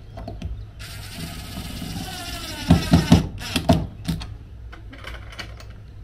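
Cordless DeWalt impact driver driving a screw into plywood: a high motor whine for about two seconds that ends in a short, loud burst of hammering as the screw seats. A few light metal clicks from the latch hardware follow.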